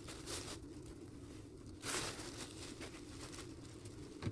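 Faint rustling and crinkling of small-pet bedding and cardboard being handled in the tank, with one louder rustle about two seconds in.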